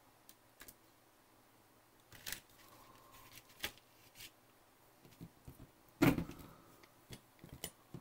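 Scattered clicks and taps of small plastic model parts and hobby tools being picked up and set down on a workbench, with a louder knock about six seconds in.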